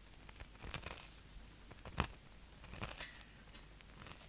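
Faint, scattered clicks and crunches of a person chewing a piece of communion bread, the sharpest about two seconds in.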